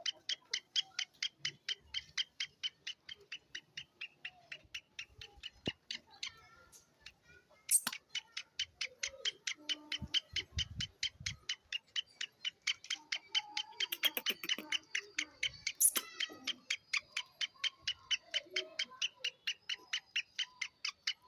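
Francolin (teetar) calling: a rapid, even series of sharp high notes, about four or five a second, with a few louder clicks in between.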